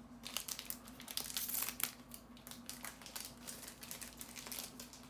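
Foil wrapper of a Magic: The Gathering booster pack crinkling in the hands as a pack is handled and opened, an irregular crackle that is busiest about one to two seconds in.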